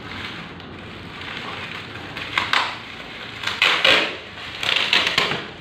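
Printer packaging being handled: cardboard and plastic crinkling and rustling in three bursts, about two and a half, four and five seconds in, the loudest around the middle.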